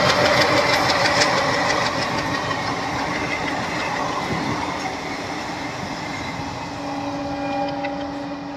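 Diesel-hauled passenger train rolling past on the rails and drawing away, a steady clatter of coach wheels that slowly fades. Near the end a horn sounds faintly for about two seconds.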